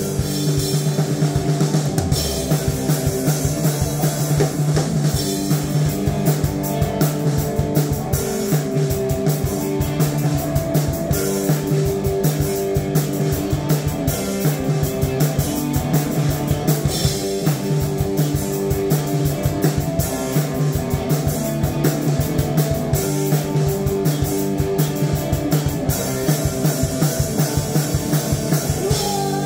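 Heavy metal jam on drum kit and electric guitar: fast, steady drumming under held guitar chords that change every second or two.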